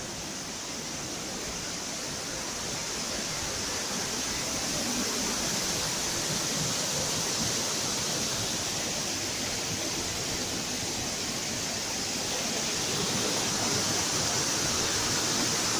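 Steady rush of cascading river water at the Algar waterfalls, growing a little louder over the last few seconds.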